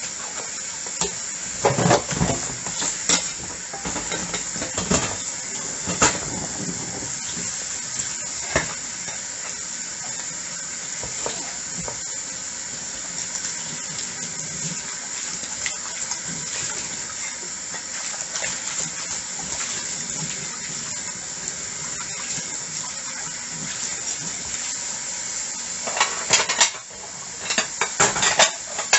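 Tap water running steadily while dishes are washed by hand, with occasional clinks of plates and cutlery against each other. About three seconds before the end the water drops away and dishes clatter rapidly.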